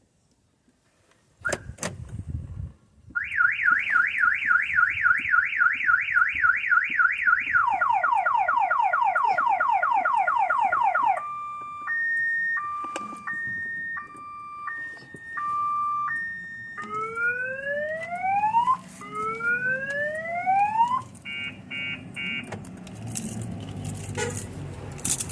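A car alarm siren sounds loudly, cycling through its tones: a fast warble, repeated falling sweeps, a two-note high-low wail, rising whoops, then quick chirps. Before it starts there is a single knock, and some clatter follows after the chirps.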